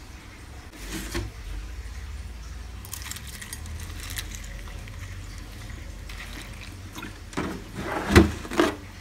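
Milk pouring from a plastic gallon jug into a bowl of cereal flakes, followed near the end by a few sharp knocks as the jug is handled and set down, the loudest about eight seconds in.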